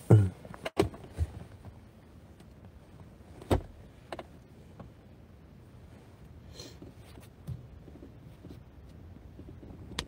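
A few scattered knocks and clicks inside a car's cabin, the loudest right at the start and a sharp one about three and a half seconds in, over a faint steady background.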